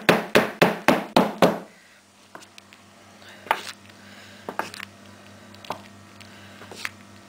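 A rapid series of loud knocks, about four a second, that stops about a second and a half in: a wooden soap mould being banged on the worktop to settle the thick batter. After it come a few light clicks of a spoon against the mould as the soap top is swirled.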